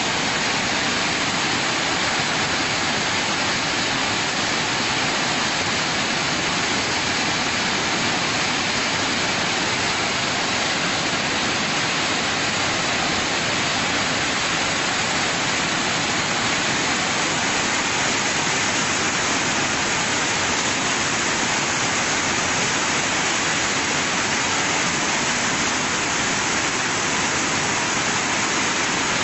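Floodwater rushing and heavy rain falling: an even, unchanging noise with no breaks or separate impacts.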